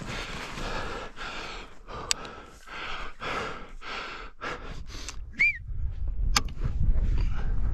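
Hard breathing and footsteps crunching in deep snow, in a run of short strokes. A single brief high chirp comes about five seconds in, then a louder low rumble of wind on the microphone for the last couple of seconds.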